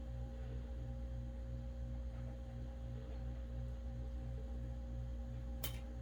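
A steady machine hum made of several fixed tones over a low drone, with a low throb pulsing a few times a second; a short sharp click near the end.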